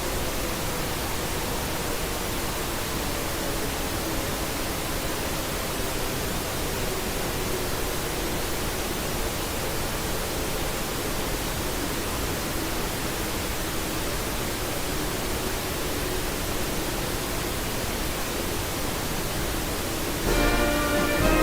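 Steady broadcast-style static hiss with faint wavering hum tones underneath. About a second before the end, music starts, the national anthem announced to follow the emergency message.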